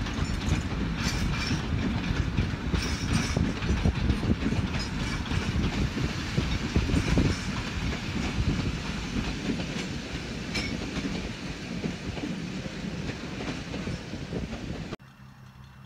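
Narrow-gauge passenger carriages rolling past, a heavy rumble with wheels clicking over the rail joints, slowly fading as the train draws away. It cuts off suddenly near the end to much quieter background.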